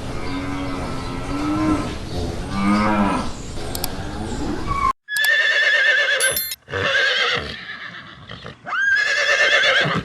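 A cow mooing in low, drawn-out calls for about five seconds. Then, after an abrupt cut, a horse whinnying in high, quavering calls, the last one rising sharply.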